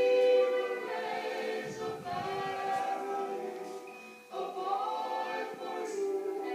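Choral singing played from a sound-art curtain: several voices hold long chords that shift slowly, dropping away briefly about four seconds in before coming back.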